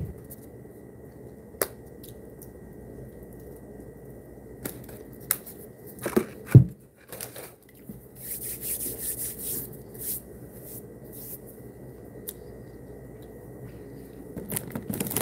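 Scattered small clicks, knocks and rustles of handling close to the microphone over quiet room noise and a faint steady high whine. The loudest is a thump about six and a half seconds in, and a stretch of hissy rustling follows.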